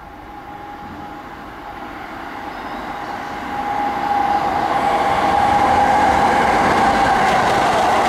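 Tokyo Metro 16000 series electric train approaching and passing through the station without stopping. Its running noise and a steady whine grow louder as it nears, then hold loud for the last few seconds.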